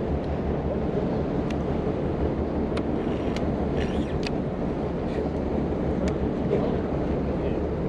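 Steady low drone of a boat's engine running, with wind noise on the microphone. A few sharp clicks come through at scattered moments.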